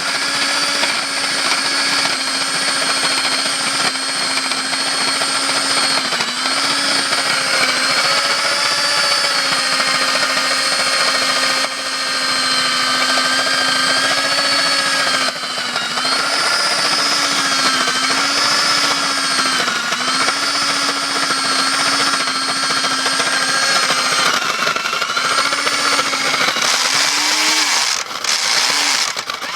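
Diamond core drill running under load with a vacuum cleaner drawing off the dust: a steady motor whine over a constant hiss. The whine sags in pitch now and then as the bit bites, and it dips and wavers near the end.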